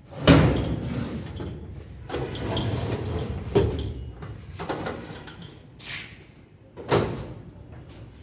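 Metal drawers of a powder-coated steel almirah being pushed shut on their runners. The loudest bang comes just after the start and is followed by a sliding scrape. Several more knocks and clicks follow as the drawers are closed and locked with their keys.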